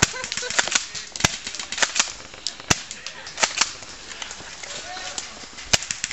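Airsoft guns firing in irregular single shots: about ten sharp cracks spread unevenly through the few seconds, with faint voices in the background.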